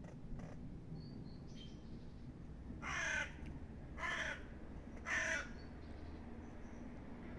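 A crow cawing three times, about a second apart, over a faint outdoor background.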